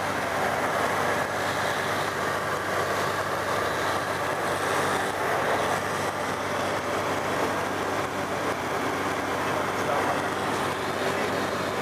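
Tecnam P92 ultralight's piston engine and propeller running steadily in flight, with a constant engine hum under loud airflow noise, heard from inside the cockpit.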